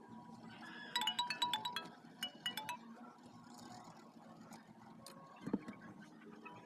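A short tune of quick, high chiming notes about a second in, lasting under two seconds, over faint background noise; a couple of soft knocks follow near the end.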